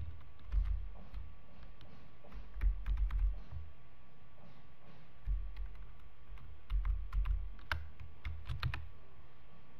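Computer keyboard and mouse clicks: short key presses and clicks in small clusters every second or two, with soft low thumps under them.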